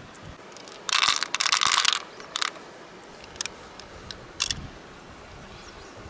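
Freshwater mussel shell being worked open by hand: a crunching scrape lasting about a second, then a few short clicks of shell against shell.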